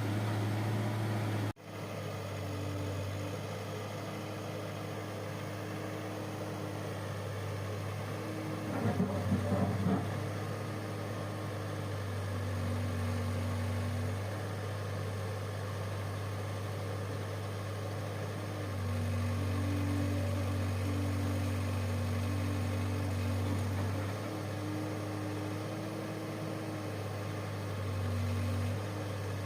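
Backhoe loader's diesel engine running steadily, its level and pitch stepping up and down a few times as the machine works. The sound cuts out briefly about a second and a half in, and a short rattle comes about nine seconds in.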